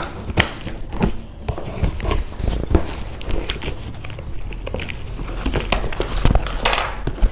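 Scissor point scoring and slitting the packing tape on a cardboard box, heard as irregular scratches, clicks and taps as the box is handled, with a short rasp of tape or cardboard near the end.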